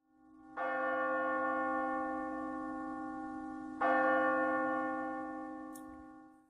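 Two struck bell-like chimes about three seconds apart, each ringing out and slowly fading, over a low steady drone.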